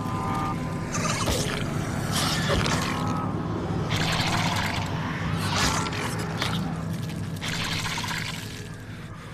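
Movie creature sound design: the octopus-like sea monster's breathy, hissing exhalations, about five in a row, over a low steady drone.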